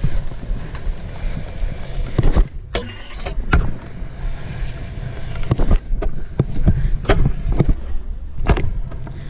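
Stunt scooter rolling on skatepark concrete, its wheels rumbling, with repeated sharp clacks as the deck and wheels hit the ground, including one spread around a short quieter gap a little over two seconds in.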